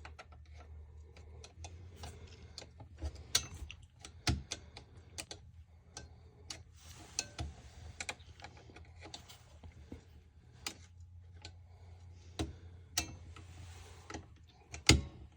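Irregular small clicks and taps of a pick and metal parts working the spring-loaded window latch of an International IC bus, with a few sharper knocks, the loudest near the end. A faint steady low hum runs underneath.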